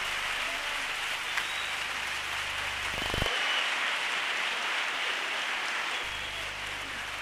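Theatre audience applauding: dense, even clapping that keeps going, with a short thump about three seconds in.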